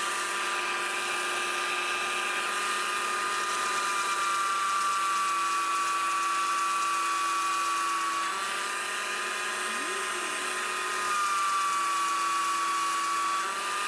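Belt sander mounted upside down, running with 40-grit sanding a planed maple leg: a steady motor whine, its pitch shifting slightly a few times as the work is pressed on.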